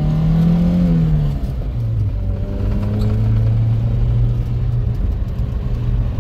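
A vehicle engine running under way: its pitch climbs, drops about a second in, then holds steady.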